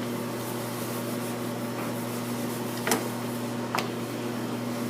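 Steady electrical hum from kitchen equipment, with two brief sharp knocks about three and four seconds in.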